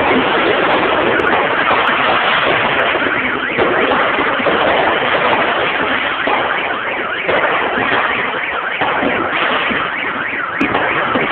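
Fireworks and firecrackers going off in a dense, continuous crackle, easing slightly around the middle.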